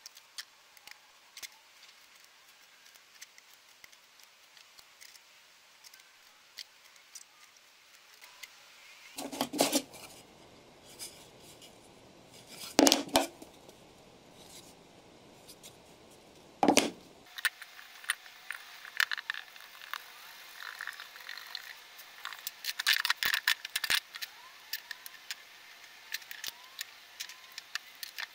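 Hands handling plywood pieces and tools on a wooden workbench: scattered small taps, clicks and scrapes, with three louder wooden knocks around the middle. A faint steady tone runs through the second half.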